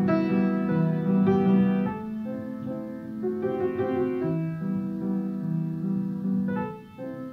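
Soft piano music: a gentle melody over sustained chords, with a short pause between phrases near the end.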